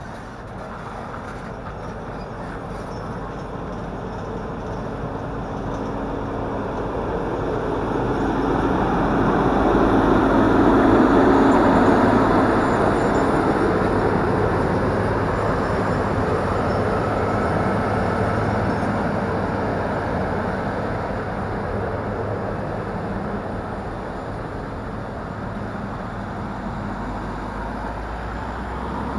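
Diesel engine of a large harvest machine, a combine or tractor, running as it passes by, growing louder to a peak about eleven seconds in and then slowly fading.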